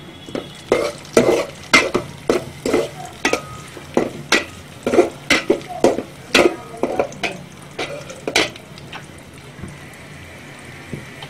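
Metal spatula stirring food in an aluminium cooking pot, knocking and scraping against the pot about twice a second while the food fries in oil. The stirring stops about nine seconds in.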